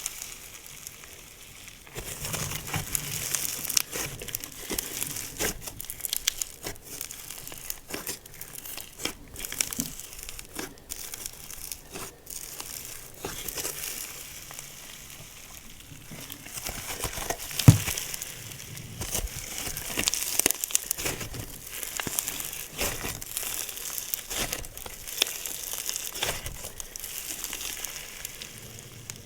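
OG Slimes slime being squeezed and worked by hand, giving dense, irregular crackling and clicking pops. One louder pop comes a little past halfway.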